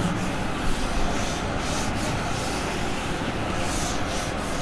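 Writing strokes on a board, faint scratchy rubbing a few times over a steady background hiss.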